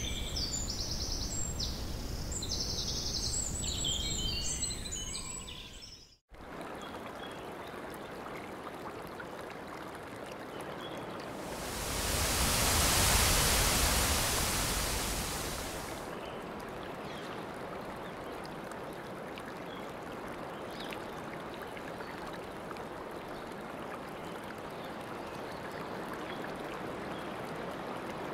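Birds chirp over a low rumble for the first few seconds. Then the sound breaks off for a moment, and steady rushing running water follows. The rush swells louder for about four seconds around the middle.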